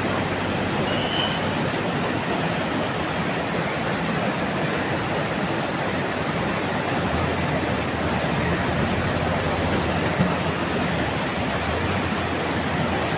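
Steady roar of a fast-flowing mountain river, with the low hum of a backhoe loader's diesel engine running faintly beneath.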